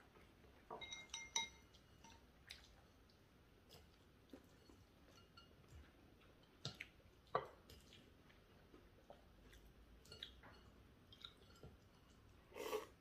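Quiet table eating sounds: chopsticks clinking now and then against ceramic bowls, with faint chewing and a short slurp near the end.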